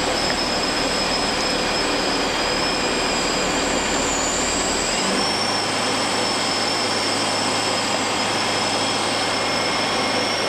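Cabin noise of a Bristell light sport aircraft in cruise: a steady drone of the piston engine and propeller, with a thin steady high whine over it. The low hum shifts up slightly about halfway through.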